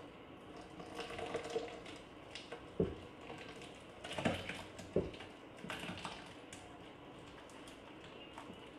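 Hot cooked figs being scraped out of a pot into a plastic blender jar: irregular clicks, knocks and scrapes, with louder thuds about three, four and five seconds in.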